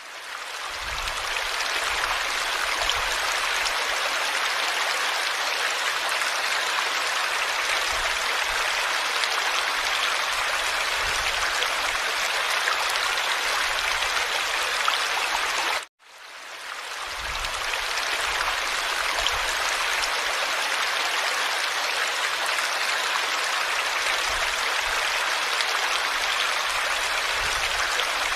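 Steady rush of running water. It fades in at the start, cuts out for a moment just past the middle, then fades back in.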